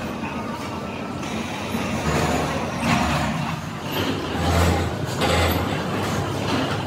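Workshop machinery noise: a low rumble that swells and fades irregularly under a broad mechanical din.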